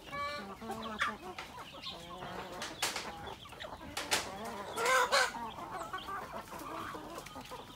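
A flock of Filipino native chickens clucking while they feed, with a few sharp clicks and a louder call about five seconds in.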